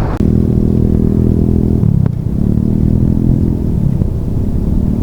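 Motorcycle engine running steadily, a low even drone, with a short click about two seconds in.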